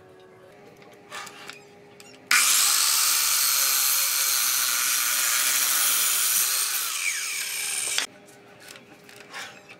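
Sliding compound miter saw starting abruptly and cutting through a thick wooden plank. It runs loud for about six seconds, then stops sharply. A few light clicks come before it.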